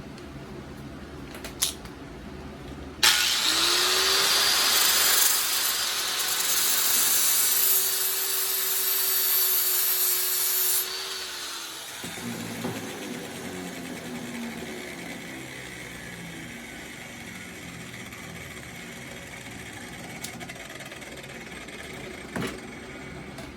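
A power tool starts about three seconds in and cuts or machines metal at a steady speed, with a loud hiss for about eight seconds. It is then switched off and its motor winds down over several seconds. A few light clicks fall before and near the end.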